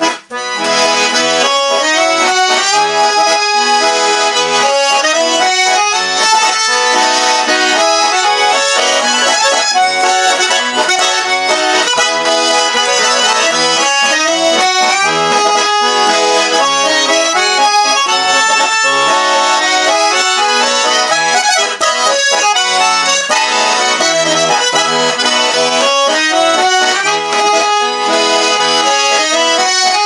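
Solo garmon, a Russian button accordion, playing a waltz: a melody on the right-hand buttons over regular bass notes and chords. After a brief break right at the start, the playing carries on steadily.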